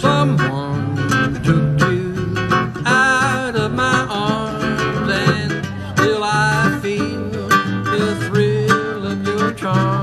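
Background music: an acoustic country-style song with plucked guitar.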